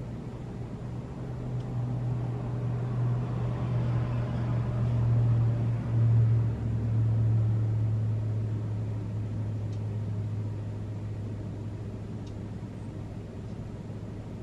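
A motor vehicle going past: a low engine hum swells to its loudest about six seconds in, drops slightly in pitch as it passes, then fades away slowly.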